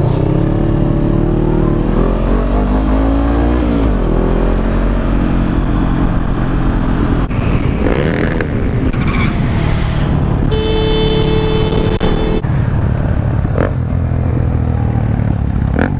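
Motorcycle engine running under the wind rush of riding, with its pitch rising as the bike accelerates a few seconds in. A steady pitched tone sounds for about two seconds about two-thirds of the way through.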